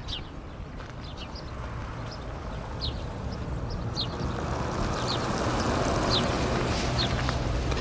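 Outdoor background of small birds chirping repeatedly over a low rushing noise that slowly grows louder.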